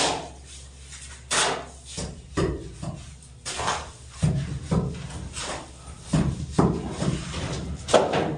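A series of irregular knocks and clatters, about a dozen sharp impacts, some with a brief ring after them, like building materials or tools being struck or handled.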